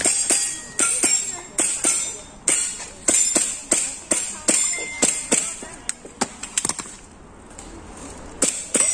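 Airsoft gas blowback pistol firing a rapid string of sharp shots, two to three a second, with a pause of about a second and a half near the end before two more shots.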